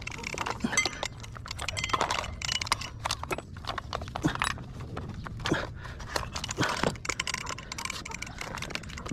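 Irregular clicks, knocks and rustles of a power cord and plastic plug being handled at a power strip, among loose scrap boards.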